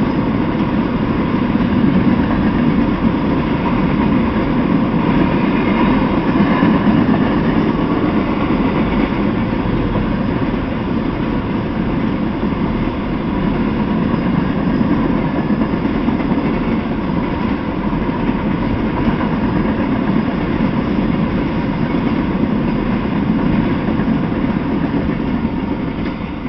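Freight train of tank cars rolling past at speed, a steady rumble of steel wheels on the rails.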